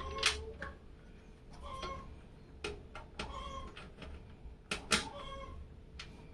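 A cat meowing over and over in short calls, mixed with several sharp clicks and knocks.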